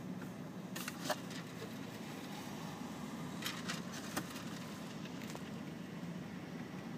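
Steady low hum of a car inside the cabin, with a few sharp clicks and crackles about one second in and again around three and a half to four seconds in.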